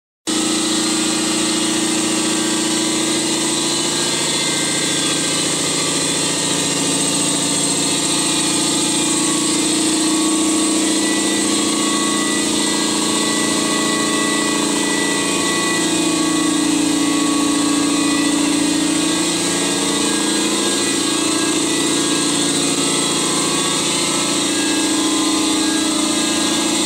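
BlackBoxVac Hurricane vacuum hold-down pump running with a steady motor hum and whir; its pitch dips and recovers slightly in the second half.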